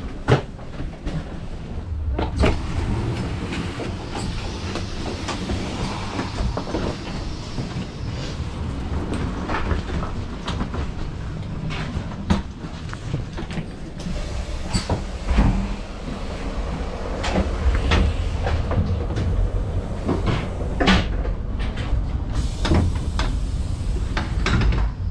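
Passenger railcar's steady low rumble, with frequent short knocks and clunks scattered through it.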